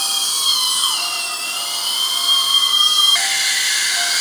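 Dental surgical drill whining steadily as it cuts maxillary bone for a lateral sinus window. Its pitch dips briefly about a second in, then climbs back. It cuts off about three seconds in, leaving a hiss.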